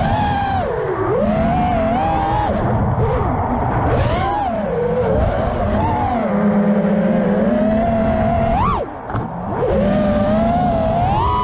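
Onboard audio of an FPV quadcopter's brushless motors (Xnova 2207 1950kv on HQ J37 props) whining, the pitch rising and falling constantly with the throttle. Just before nine seconds in the whine sweeps up sharply, cuts out briefly as the throttle is chopped, then climbs back.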